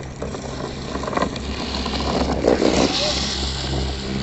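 Drift trikes rolling and sliding down the asphalt, their plastic-sleeved rear wheels scraping in a rising, noisy swell that peaks a little past halfway, over a steady low engine hum.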